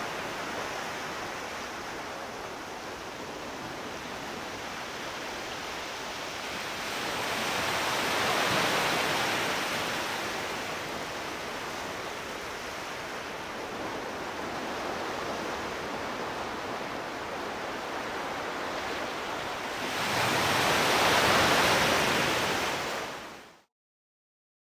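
Steady rushing wind noise on a space shuttle solid rocket booster's onboard camera as the booster falls under its main parachute. It swells twice, then stops abruptly near the end.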